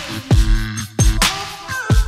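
Electronic music with a heavy beat: deep kick drums and sharp snare hits under held synth notes.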